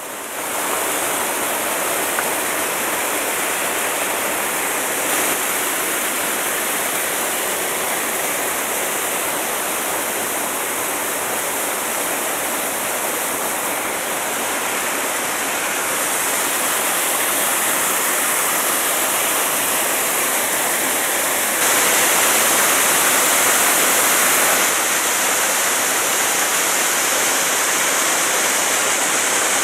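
A waterfall in a mountain gorge rushes steadily into a rock pool. The sound is a loud, even roar of falling water that swells for a few seconds about two-thirds of the way through.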